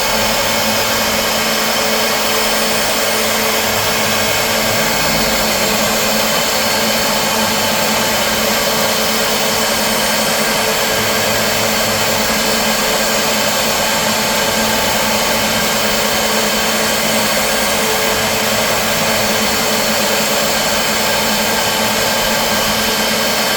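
CNC machine running steadily: a constant motor whine with several fixed tones over an airy hiss, unchanging throughout.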